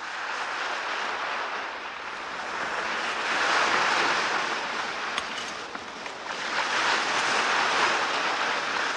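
Small waves washing onto a pebble shore, a steady rush of surf that swells twice and eases in between.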